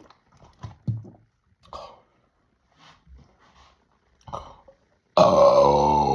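Short gasps and throat noises from a man drinking fizzy soda. About five seconds in comes a sudden, loud, drawn-out belch with a slightly falling pitch, the carbonation escaping during a two-liter chug.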